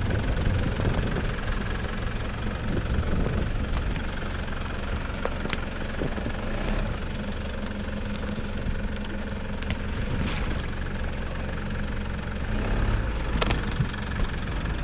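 An off-road vehicle's engine running steadily at low revs, with a few sharp clicks and knocks scattered through it.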